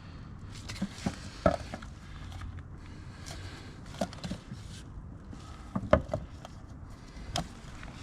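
Scattered sharp clicks, taps and scrapes of hands working at a stuck cap on a metal oil tin, with the loudest knocks about a second and a half in, around four seconds, around six seconds and near the end.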